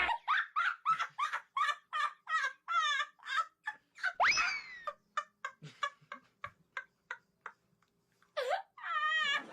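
Domestic fowl calling in a fast run of short calls, about three a second, broken by a rising sweep about four seconds in, then a few faint short ticks and two louder calls near the end.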